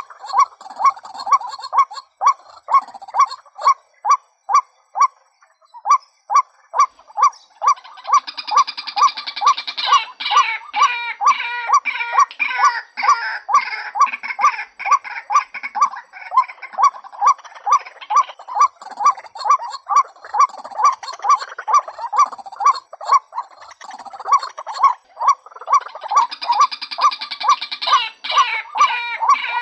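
Female white-breasted waterhen calling a steady run of short 'kwak' notes, two or three a second. About 8 seconds in and again near the end, a harsher gurgling chatter joins the notes.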